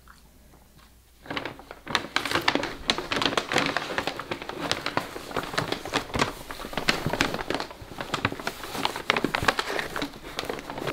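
Brown paper gift bag rustling and crinkling as two dogs, a corgi and an American Eskimo dog, dig their snouts into it, starting about a second in and going on as a dense run of crackles.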